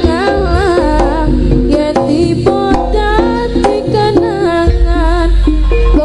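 Background music: an instrumental passage of a Javanese pop song, with a hand-drum rhythm, a bass line and a wavering melodic lead.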